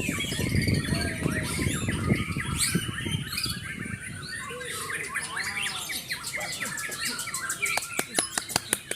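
Several birds chirping and squawking over one another. Low rustling noise runs through the first few seconds, and a quick run of sharp clicks comes near the end.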